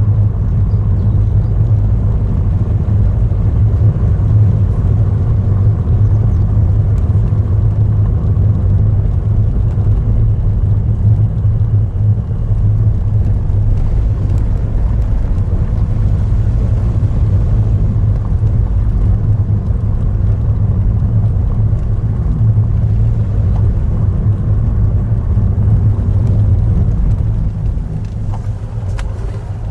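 Car driving at a steady pace: a low engine and road rumble heard from inside the cabin, easing off slightly near the end.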